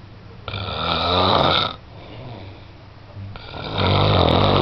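Very loud snoring: two long snores about three seconds apart, each lasting a little over a second.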